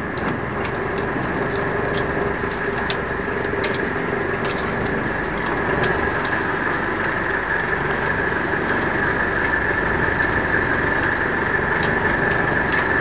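Fishing boat's engine running steadily: a constant drone with a steady high whine over it, and scattered light clicks.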